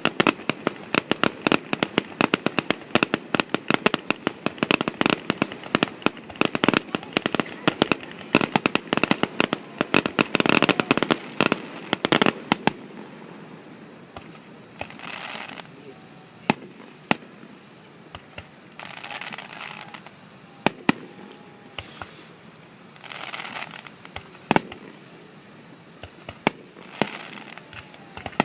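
Fireworks finale: a rapid barrage of bangs, many a second, for about the first twelve seconds. It then thins to scattered single bangs, with a few short stretches of hazy noise in between.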